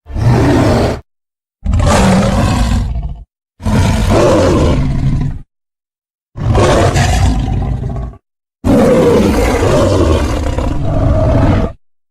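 Designed kaiju roars for King Caesar, blended from lion, tiger, gorilla and other animal recordings: five separate loud roars with short silences between them, the last one the longest.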